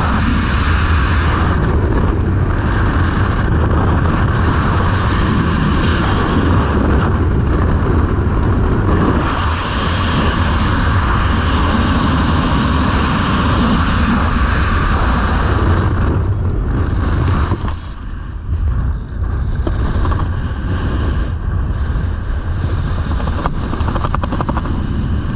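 Loud wind rush buffeting the microphone of a skydiver's camera in freefall. About 16 seconds in the hiss thins out and the level dips for a couple of seconds, then the rush continues a little lower.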